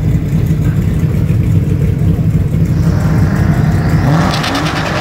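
Loud, steady low rumble of high-performance drag cars' engines at the starting line, with a rev rising in pitch about four seconds in.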